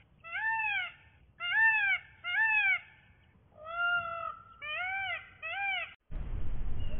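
Indian peafowl (peacock) calling: a run of about seven loud, rising-and-falling meow-like calls, each about half a second long, one near the middle longer and flatter. The calls stop abruptly about six seconds in and a steady hiss takes over.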